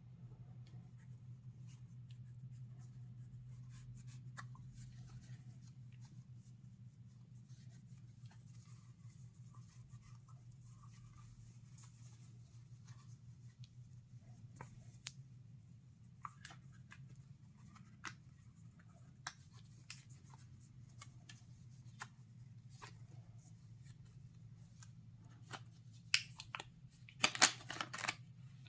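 Trading cards and their packaging being handled: scattered soft clicks and rustles over a steady low hum, with a cluster of louder snaps and rustling near the end.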